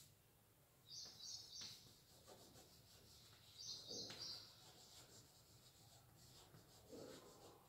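Faint chalk writing on a blackboard: light scratches and taps as letters are written. Short clusters of high chirps come about a second in and again about four seconds in.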